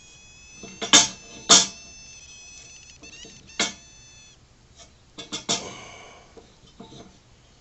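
Marking tools knocked and set down on a wooden blank and bench: several sharp knocks, each followed by a brief ringing tone, with a quick cluster of knocks near the end.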